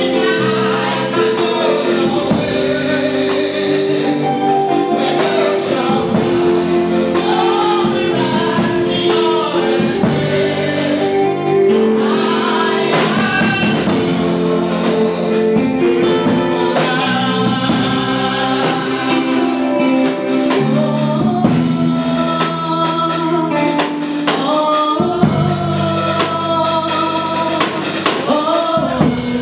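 Gospel music: voices singing a melody over instrumental backing with drums.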